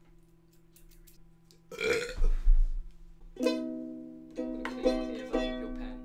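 Ukulele strummed, four chords about 3.4, 4.4, 4.8 and 5.4 seconds in, each left to ring and fade. Before them, about two seconds in, comes a short loud rough noise.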